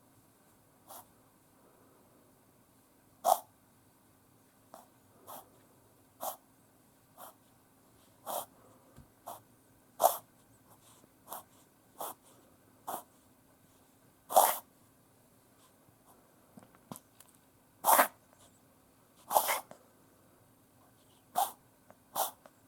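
Yorkshire Terrier reverse sneezing: a run of short, sharp, noisy breaths through the nose at irregular intervals, roughly one a second, some coming in quick pairs. This is the laboured breathing of a reverse-sneezing spell.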